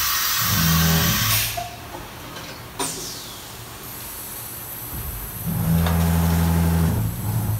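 A Fadal VMC-4020HT vertical machining center running. A loud air hiss cuts off about a second in, then a sharp click with a falling tone follows. The machine's motors hum steadily in two stretches, and a fainter hiss returns as flood coolant sprays from the nozzles at the spindle.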